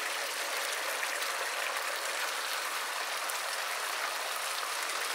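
Chicken pieces frying in a pot with a steady sizzle and faint crackles, as white vinegar is poured in over them.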